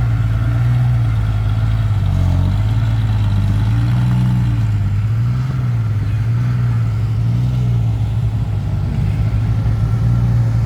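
Heavy diesel engine running close by, its pitch rising and falling gently every second or two.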